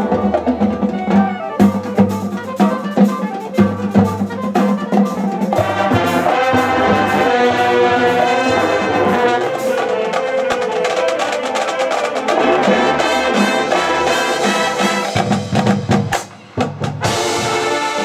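High school marching band playing its field show: brass with drums and front-ensemble percussion. Sharp drum hits punctuate the first few seconds, and there is a brief break near the end before the band comes back in.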